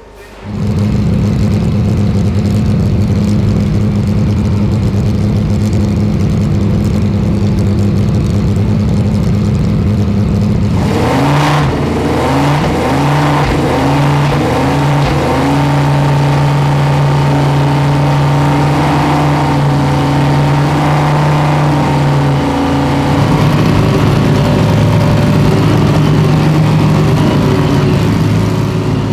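GT3 race car engines: a steady drone for about ten seconds, then at about eleven seconds they open up, revving through several quick upshifts, and run on at high revs.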